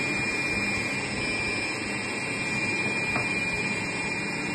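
Electric food processor motor running steadily with a thin high whine while water is poured into its jar. A light tap about three seconds in.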